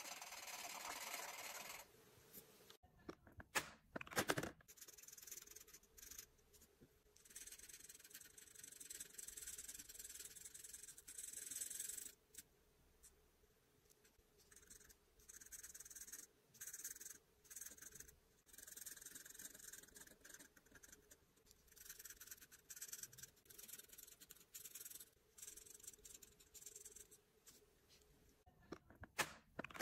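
Faint scratchy strokes of an alcohol marker tip colouring on paper, in short runs with pauses between them. A few sharp clicks come about three to four seconds in and again near the end.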